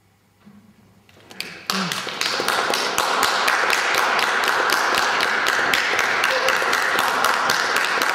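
Audience applause breaking out about a second and a half in, after a brief hush, and going on steadily as a dense patter of many hands clapping.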